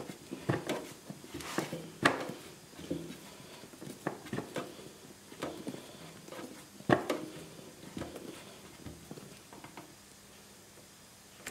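Scattered light clicks and taps of a hand-held Phillips screwdriver turning screws into a motorcycle's plastic airbox cover. The loudest taps come at about two and seven seconds in.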